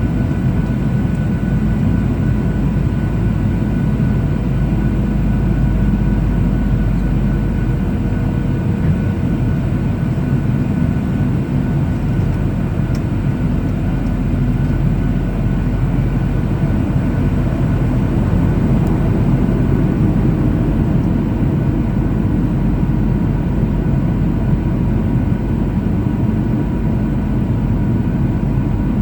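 Steady in-flight cabin noise of a Boeing 737-800: the CFM56 turbofan engines' drone and the rush of air, heard inside the cabin, with several faint steady whining tones over a deep, even rumble.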